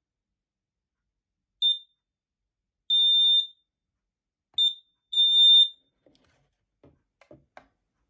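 Wireless heat detector's alarm sounder beeping while its test button is held down: a short high beep and a longer one, then the same pair again. The long beep signals that the detector has been cleared. A few faint knocks follow near the end.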